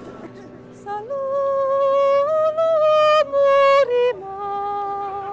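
A woman chanting a holistic healing chant in long held vocal notes. The voice starts about a second in, steps up slightly in pitch, breaks off briefly, then settles on a lower held note near the end.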